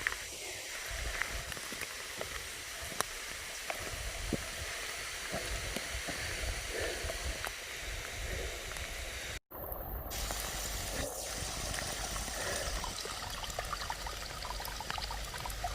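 Heavy rain pouring down: a dense steady hiss peppered with the ticks of single drops, over a low rumble. The sound drops out for an instant about nine seconds in.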